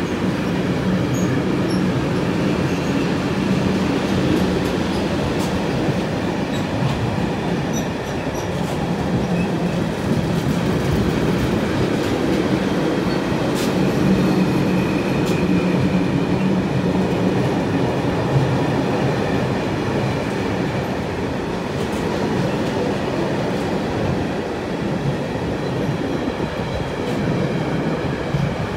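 Freight train of covered goods wagons rolling past at close range: a steady rumble of wheels on rail, with faint clicks over the rail joints and a thin high wheel squeal.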